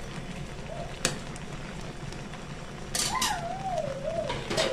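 A slotted metal spatula clacks once against a steel cooking pan about a second in. Near the end there is a scraping clatter, and over it a wavering tone that falls in pitch.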